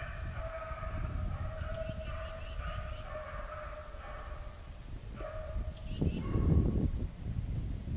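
Beagles baying on a trail, long drawn-out howls that run together with a short break past the middle. A low rumble on the microphone grows louder about six seconds in.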